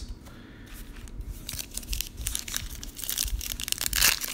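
Foil wrapper of a Panini Diamond Kings baseball card pack crinkling in the hands and being torn open. The crackling grows louder toward the end.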